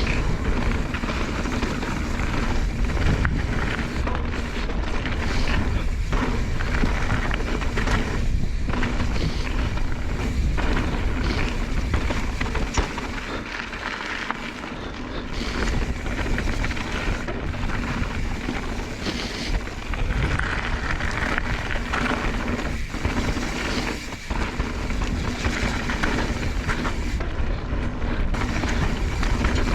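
Mountain bike riding fast downhill on a dirt and rock trail: continuous wind rumble on the microphone and tyre and trail noise, with scattered knocks and rattles from the bike over bumps.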